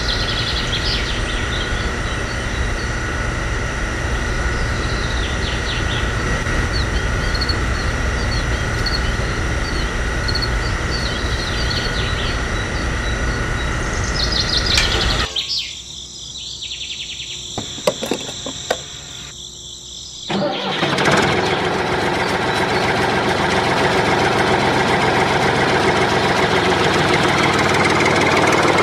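Steady motor running with bird chirps over it. About halfway it breaks off, a few clicks follow, then a louder steady engine sound starts and keeps running.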